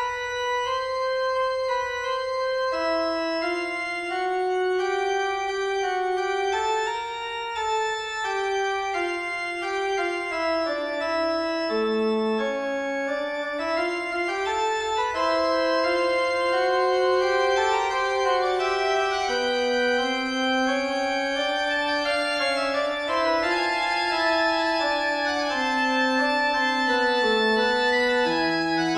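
Slow instrumental music: held notes in several voices moving together in a melody and chords.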